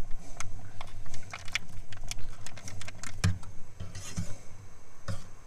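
A metal spoon clinking and scraping against a saucepan while stirring coconut milk into curry paste, with repeated small knocks, the loudest about three seconds in, over a steady low hum.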